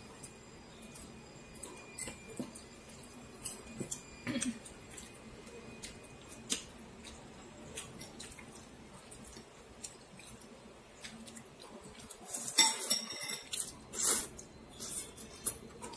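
Chopsticks and a ceramic soup spoon clinking against a ceramic bowl as noodles in broth are stirred and lifted, in scattered light clicks, with a louder run of clinks near the end.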